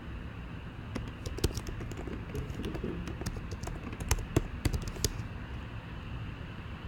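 Typing on a computer keyboard: a quick, uneven run of key clicks that thins out about five seconds in.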